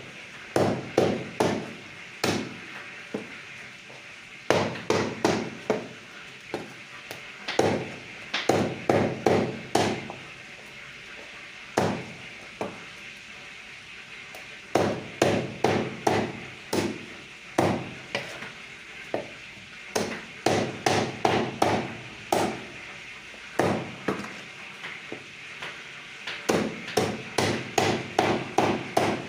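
A cleaver chopping chicken on a chopping block: runs of several quick, sharp blows, about three or four a second, broken by short pauses, over a steady background hiss.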